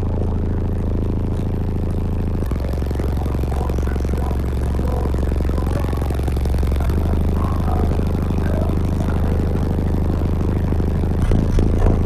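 Car-audio subwoofer system playing music loud inside the vehicle: deep sustained bass notes that change about two and a half and seven seconds in, with a pulsing beat coming in near the end.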